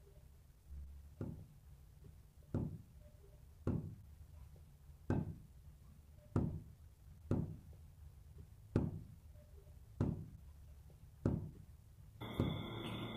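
Slow, evenly spaced knocks, about nine of them, one every second and a quarter or so, each dull and followed by a short ringing tail. Near the end a sustained droning music pad comes in.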